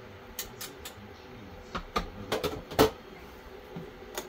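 Kitchen clatter of utensils against dishes and a pot: a few light clicks, then a quicker run of knocks about two seconds in, the loudest near three seconds, and one more near the end, over a faint steady hum.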